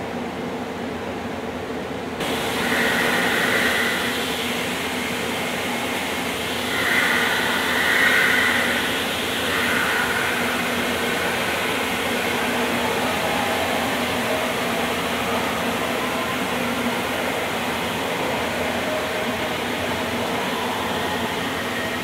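Ride-on floor scrubber running steadily as it drives across a marble floor. It gives a constant motor hum, with a high whine that rises and falls away three times in the first half.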